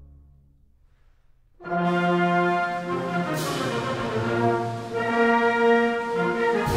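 Wind ensemble playing live: a soft passage dies away to a brief hush, then about a second and a half in the full band comes in loudly with sustained brass chords. There is a bright crash about three seconds in and another near the end.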